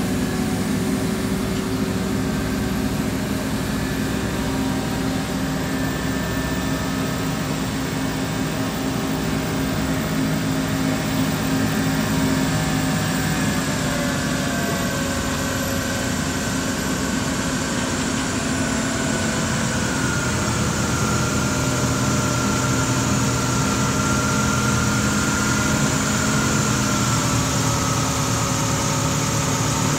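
Mobile crane's diesel engine idling steadily, with a faint higher whine that grows a little stronger in the second half.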